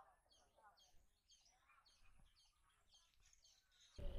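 Faint chirping of small birds, short high calls repeated several times a second. A sudden louder noise breaks in right at the end.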